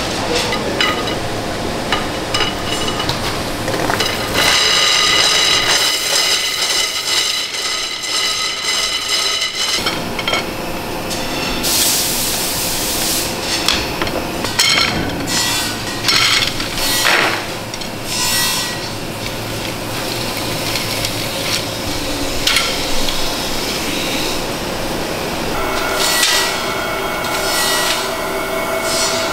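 Factory work sounds as carbon fishing rod blanks are handled: hard tubes knocking and rubbing against each other and the bench. A machine whine of several high tones runs for several seconds early on, and there is a short loud hiss about halfway through.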